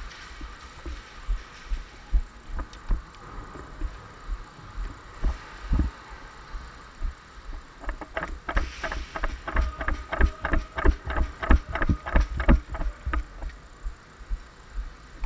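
Footsteps and gear bumps of a player moving through an indoor plywood airsoft course, a steady thudding two or three times a second. About eight seconds in, a fast, even run of sharp cracks, roughly four or five a second, comes in for some five seconds and is the loudest sound.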